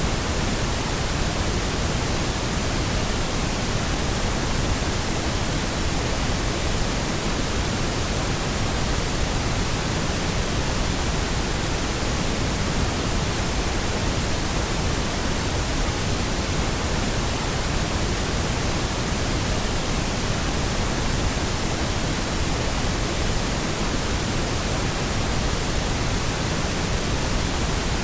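Steady, unbroken pink noise: an even hiss with a deep rush in the low end, unchanging throughout.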